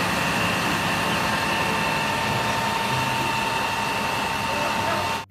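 Isuzu FVZ water tanker truck spraying from its roof water cannon: a steady rushing noise of the engine-driven pump and water jet, with a steady high whine over it.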